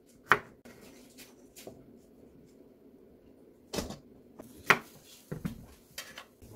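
Kitchen knife and vegetables knocking on a wooden cutting board: scattered, irregular sharp knocks with quiet gaps between, the loudest just after the start and a cluster about four to six seconds in.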